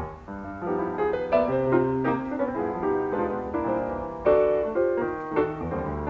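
Two acoustic grand pianos playing jazz together in a live duet, busy overlapping chords and runs, heard from an FM radio broadcast taped on cassette.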